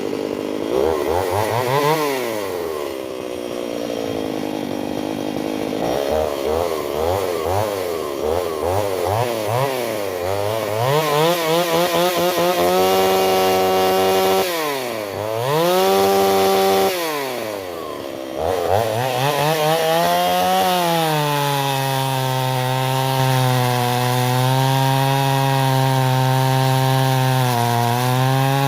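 Stihl 028 AV Super two-stroke chainsaw, its pitch swinging up and down repeatedly as the throttle is worked, dropping away twice. It then settles from about two-thirds of the way in into a steady held pitch under load as it cuts through frozen beech.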